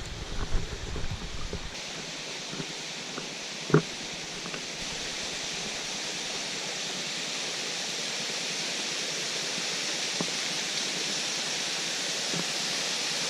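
Steady rushing hiss of a waterfall, slowly growing louder. A low rumble of wind on the microphone in the first couple of seconds, and one sharp knock near four seconds.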